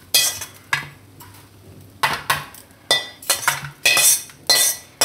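Steel spoon scraping and clinking against a steel kadai and plate as roasted coriander, cumin and sesame seeds are emptied out to cool: a run of short metal scrapes and clinks, each ringing briefly, about two a second.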